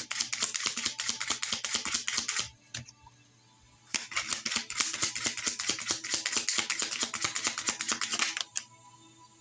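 Tarot cards being shuffled by hand: a fast run of dense clicking that stops a couple of seconds in, then a second run that starts about four seconds in and stops near the end.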